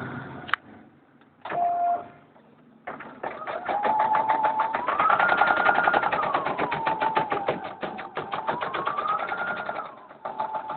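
Embroidery machine stitching: a rapid, even run of needle strokes over a motor whine that rises and falls in pitch as the machine speeds up and slows, starting about three seconds in and stopping near the end. Before it comes a click and a short beep.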